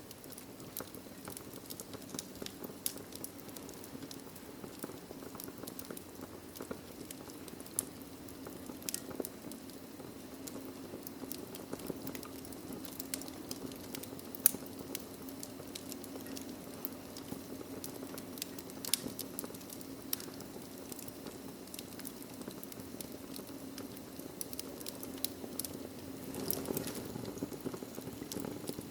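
Wood fire in a fireplace crackling: frequent small sharp pops scattered over a steady low rush, with one louder pop about halfway through.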